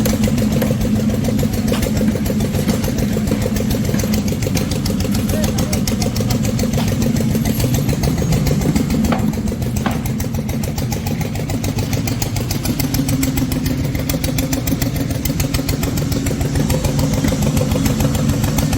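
An engine running steadily at a constant speed, with a fast even firing rhythm.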